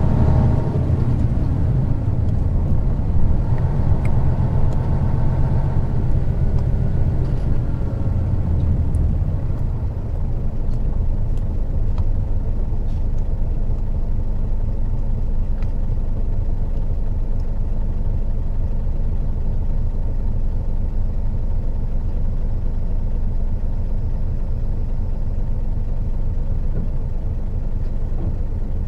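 Isuzu Gala III coach's 12PE1 V12 diesel engine running while the bus is under way. Its engine tone is strong for the first several seconds and fades, and about ten seconds in it settles into a steady low rumble.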